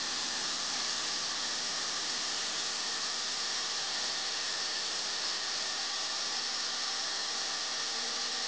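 Electric hand drill running steadily, spinning a metal plumb bob against sandpaper held by hand, giving a steady, even hiss of sanding.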